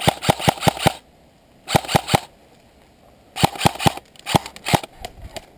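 Airsoft electric rifle firing four bursts of BBs, a longer burst of about seven shots and then three short ones of about four, at a slow rate of roughly six or seven shots a second; the shooter says in the same breath that his battery is flat.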